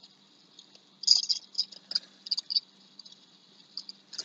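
Pizza being bitten and chewed close to the microphone: irregular soft crunches and wet mouth clicks, the loudest about a second in and around two seconds in.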